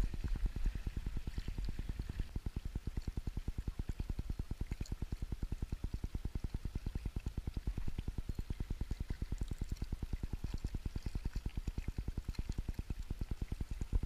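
Spinning reel being cranked to retrieve line, its turning carried to the camera as a steady run of low, even thumps, about six a second.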